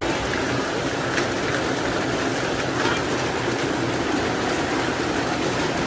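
Heavy rain pouring down, a steady dense rush of noise.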